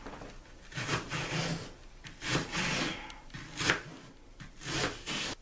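Kitchen knife slicing through a half onion onto a plastic cutting board, four slicing strokes about a second apart.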